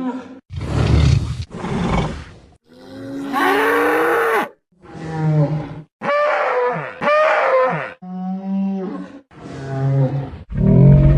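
Stegosaurus creature sound effects built from animal recordings: a string of about nine separate roars, bellows and grunts, each around a second long with brief silences between them, one longer, rougher call about three seconds in.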